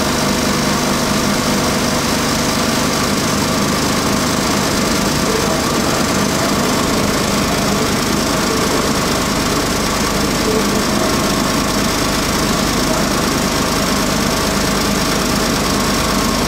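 Aerial tramway machinery running steadily as the cabin comes down into the station: a constant mechanical hum with several steady tones over a broad rushing noise.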